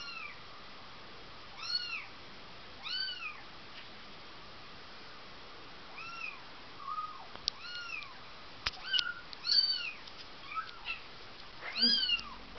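Four-week-old Bengal kitten mewing: short, high calls that rise and then fall in pitch, a second or more apart at first and coming faster in the last few seconds. A couple of sharp clicks fall between the calls.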